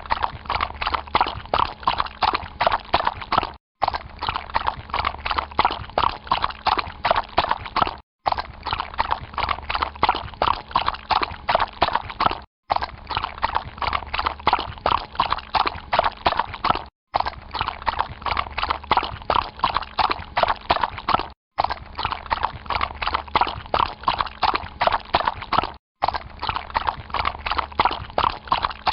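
Horse walking through water, its hooves splashing and knocking in a quick, steady rhythm. The same short recording repeats, with a brief silent break about every four and a half seconds.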